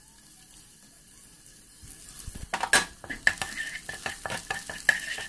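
Chopped garlic sizzling in a little oil in a wok, faint at first. From about halfway through, a wooden spatula stirs it with a series of scrapes and knocks against the pan.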